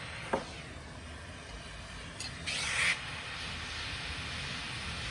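A handheld soldering torch is lit with a flint striker: a louder burst of gas hiss about two and a half seconds in, after which the flame burns with a steady hiss.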